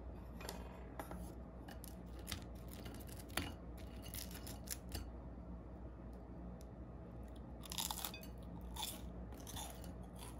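Quiet eating sounds: scattered light crunches of chewing and clicks of chopsticks against ceramic plates, a few of them closer together near the end, over a faint steady hum.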